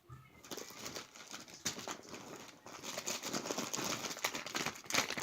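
Plastic packaging crinkling and crackling as squishy toys are handled, getting busier toward the end.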